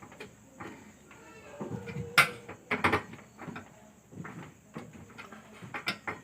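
Scattered light clicks and knocks of gas-stove parts being handled, with the sharpest knocks about two and three seconds in.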